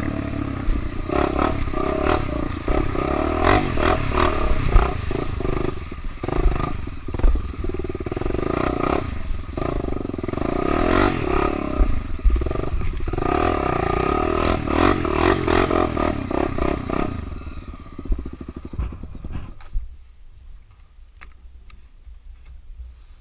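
Trail motorcycle running and being ridden over rough ground, its engine note rising and falling with the throttle amid clattering knocks and rattles. About 18 seconds in the engine sound dies down and only faint scattered clicks remain.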